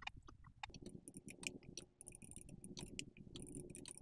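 Near silence: faint room tone with scattered, irregular small clicks.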